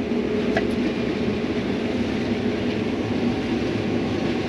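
Combine harvester running steadily while harvesting corn: an even, unbroken machine rumble.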